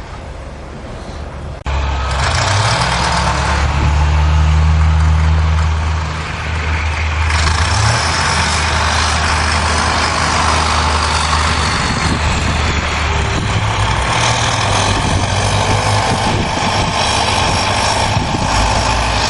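A large vehicle engine running: a loud, steady low drone with heavy noise on top. It gets suddenly louder a little under two seconds in.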